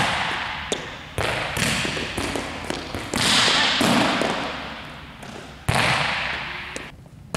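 Volleyball being set and bouncing off hands and the court, four sharp thumps about two seconds apart, each ringing on in a large echoing gym hall.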